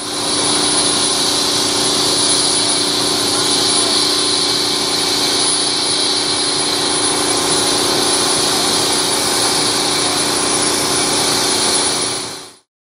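A loud, steady mechanical drone: an even hiss with a few constant tones over it, which starts abruptly and cuts off suddenly near the end.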